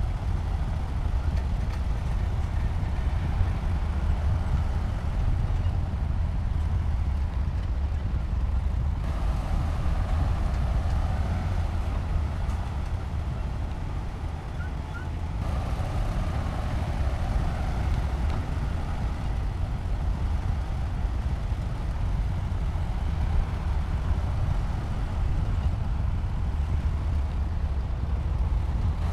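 Bulldozer's heavy diesel engine running steadily with a continuous low rumble and machinery clatter; the sound shifts abruptly twice, about nine and fifteen seconds in.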